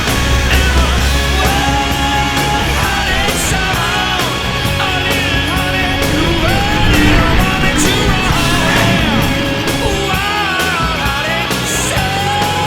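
Rock music with a steady beat, loud throughout.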